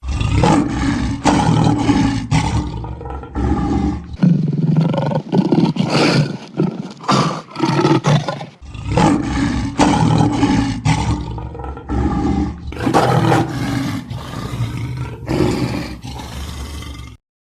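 A big cat roaring over and over in loud calls, broken by abrupt cuts, stopping suddenly near the end.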